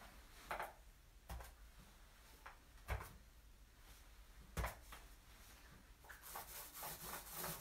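Four faint, sharp knocks spread over the first few seconds, then near the end a gritty scraping as a small paint roller is worked over the stone-fleck SpreadStone coating on a countertop.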